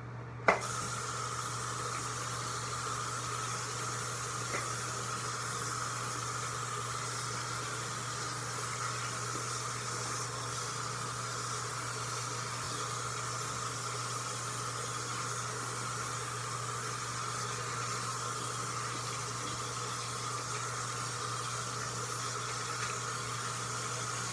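Steady hiss of water running from a bathtub tap, starting suddenly with a click about half a second in.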